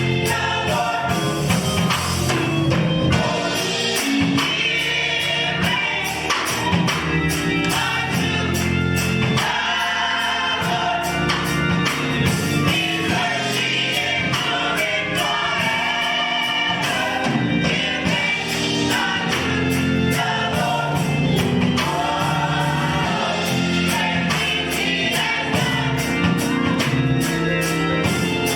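A choir singing a gospel song over instrumental accompaniment with a steady beat.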